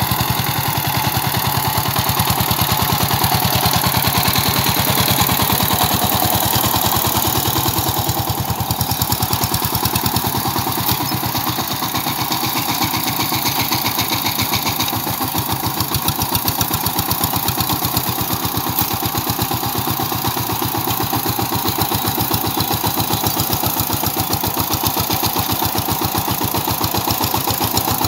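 Two-wheel power tiller's single-cylinder diesel engine running steadily under load with an even, rapid chugging beat while it pulls through a flooded paddy field.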